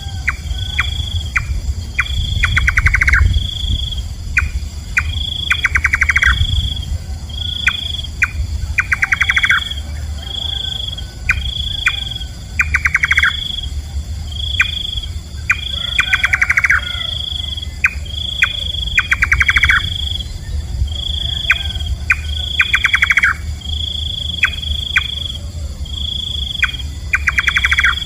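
Nightjar calling: every couple of seconds a run of rapid knocking notes, over a short high note that repeats about once a second.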